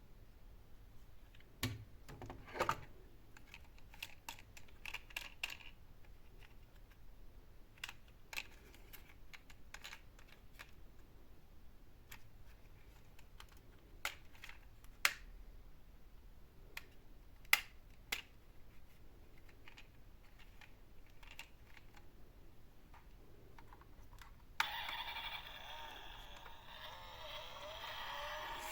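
Toy vehicles being handled: scattered light plastic clicks and knocks, the loudest about 2, 15 and 17 seconds in. Near the end, a toy's electronic sound effect switches on suddenly and keeps playing.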